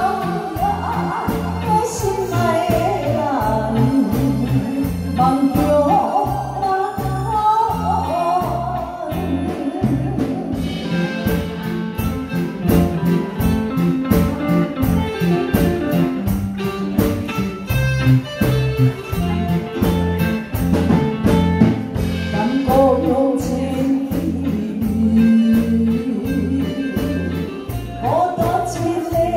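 Female singer with a live band of drums, bass guitar, electric guitar and keyboard performing a slow ballad over a steady beat. The singing drops out for an instrumental stretch in the middle and comes back near the end.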